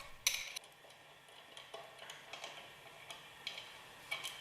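Faint, irregular metallic clicks and taps of a wrench working the hex head screws on a separator's hood, with a sharper tap at the start and another near the end.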